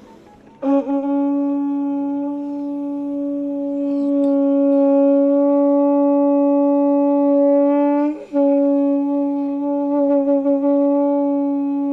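Conch shell (shankh) blown in a long, steady blast of about seven seconds. It breaks off briefly for breath, then a second steady blast begins. This is shankhnad, the ritual conch call of Hindu worship and yoga practice.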